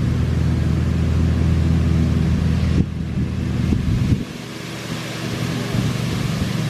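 An engine running steadily with a low hum; its lowest part drops away about four seconds in, with a few light knocks just before.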